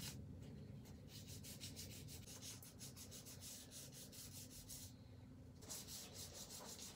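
Faint hand sanding with 1,000-grit sandpaper over the gloss finish of a carved wooden nameboard: quick rubbing strokes, with a short pause about five seconds in. The gloss is being scuffed so the gold-leaf size will grip.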